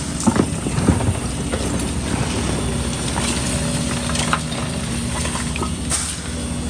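Heavy diesel excavator engine running steadily, with a cluster of sharp knocks and clanks in the first second and a short hiss near the end.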